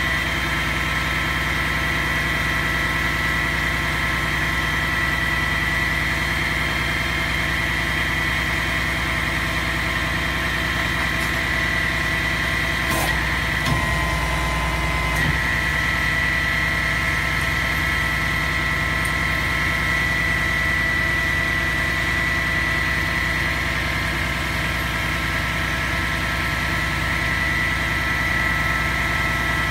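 Skip loader truck's diesel engine idling steadily, with a steady high whine over it. About halfway through there is a single sharp knock and the whine drops to a lower pitch for about two seconds before it comes back.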